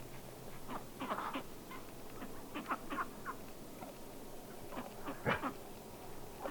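Scattered short, high chirps and squeaks from small animals or birds, some sliding quickly down in pitch, with the loudest one about five seconds in.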